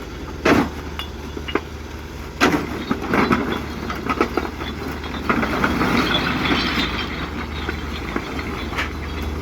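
A heavy engine running with a steady low hum, with a clattering rattle over it and several sharp metallic knocks and clanks: about half a second in, twice around two and a half to three seconds, and near the end.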